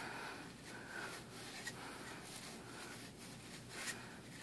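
Emery cloth rubbed over the corroded terminals of a GM 3.1-litre engine's coil pack, faint repeated scraping strokes as the rust is cleaned off for a good connection.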